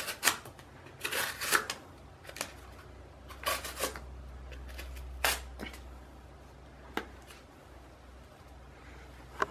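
A plain-edged Buck pocket knife cutting through cardboard in a series of short scraping strokes, the heaviest in the first four seconds and then fewer and further apart.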